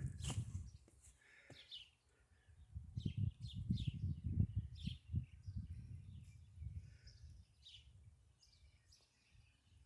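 Small birds chirping again and again in short, quick, downward-sliding notes, over an uneven low rumbling.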